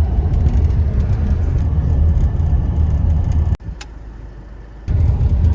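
Steady low rumble of a moving vehicle. About three and a half seconds in, it drops abruptly after a click to a quieter rumble for just over a second, then comes back at full level.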